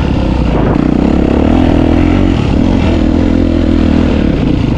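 Dirt bike engine running loud and steady under way, its pitch rising and dipping slightly with the throttle.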